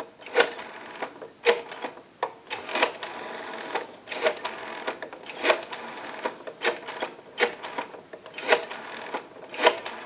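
Western Electric rotary telephone dial being turned and released digit after digit, each return coming back with a run of clicks as it pulses out a phone number.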